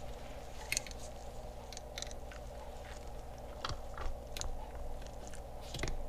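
Small, sharp metallic clicks and scrapes, about ten spread irregularly, as a hand tool works a retaining ring clip off the gear shaft of a convertible-top latch motor. A faint steady hum runs underneath.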